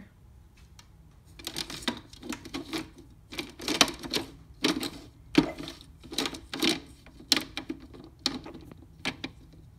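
Plastic food-dehydrator trays clicking and knocking against each other in quick, irregular clusters as a loaded tray is set onto the stack and worked to seat it. The tray is not settling into place.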